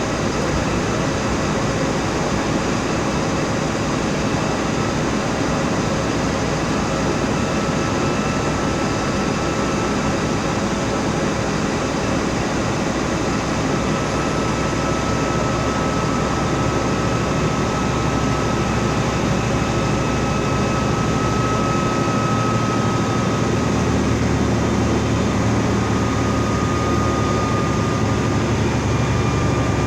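Mercedes-Benz OF 1724L bus's diesel engine running steadily. About three-quarters of the way through, its low hum rises a little in pitch and grows slightly louder.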